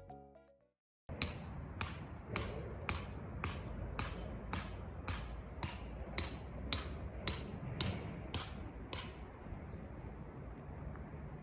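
A tent stake being hammered into the ground: about fifteen steady strikes, roughly two a second, each with a metallic ring, stopping about nine seconds in.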